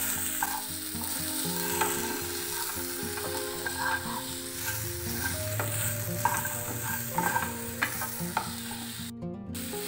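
A slotted wooden spatula stirs and scrapes ripe plantain cubes, grated coconut, cashews and raisins around a pan as they sauté in ghee with a light sizzle. Soft background music with long held notes plays underneath.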